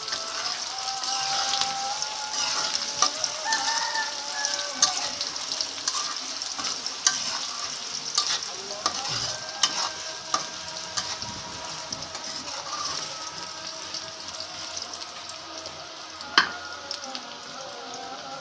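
Sliced onions sizzling in hot oil in a large metal wok-style pan, stirred with a metal spatula that scrapes and clicks against the pan, with one sharp clack near the end.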